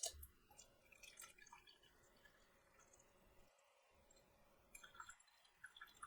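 Faint handling noise from the coffee packaging: a sharp click at the start, then soft scattered ticks and crackles in two short spells.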